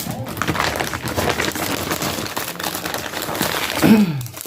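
Plastic packaging bag crinkling steadily as it is handled and opened, with a short falling voice sound near the end.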